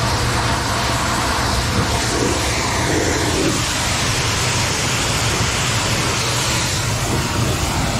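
Pressure washer jet spraying against a truck's muddy lower bodywork, a loud steady hiss of water, with the washer's motor humming steadily underneath.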